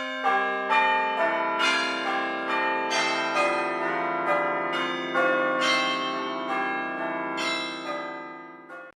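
Phone ringtone of church-bell chimes: a melody of struck bell tones, about two a second, each ringing on over the next, fading out near the end.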